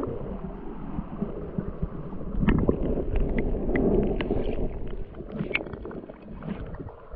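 River water sloshing and splashing close by, with scattered small knocks and clicks; it swells in the middle and eases off near the end.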